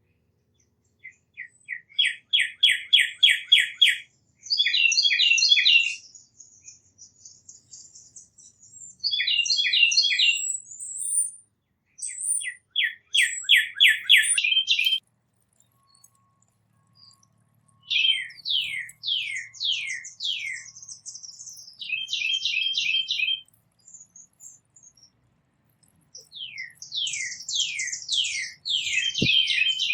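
Songbirds singing in a series of short phrases of rapid repeated notes, trills and down-slurred whistles, with brief pauses between phrases.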